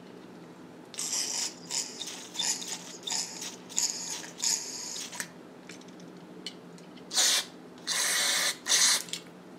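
Aerosol can of carburettor cleaner: a few seconds of quick rattling as the can is shaken, then sprayed in three short hisses near the end, the middle one about a second long.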